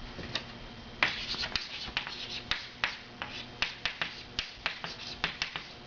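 A rapid, uneven series of short, sharp clicks or taps, a few each second.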